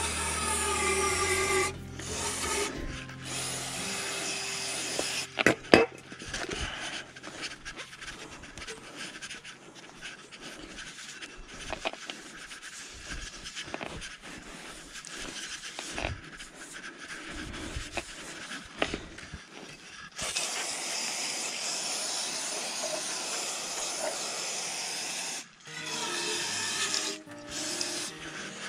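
Background music over irregular rubbing and scraping as a dirty part of an excavator's hydraulic return-filter assembly is wiped clean by hand, with a steady hiss for several seconds past the middle.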